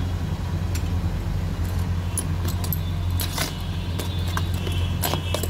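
Steel spoon stirring thick besan batter in a stainless steel bowl, clinking and scraping against the metal. The clinks come more often from about two seconds in. A steady low hum runs underneath.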